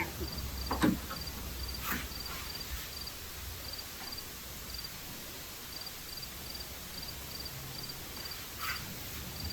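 An insect chirping: a faint, high, cricket-like chirp repeating about twice a second, with a few short knocks about one and two seconds in and near the end.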